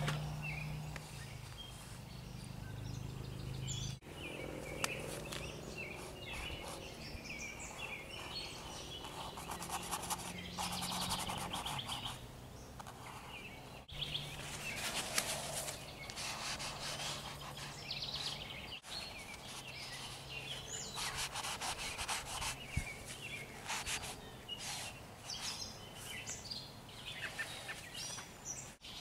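Outdoor ambience: birds chirping, with quick rapid trills at intervals, over a low steady hum that comes and goes.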